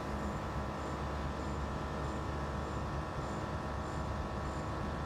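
A 1989 Chevy Suburban idling, with the compressors of its air bag suspension running: a steady mechanical hum with a faint high tick repeating about every two-thirds of a second.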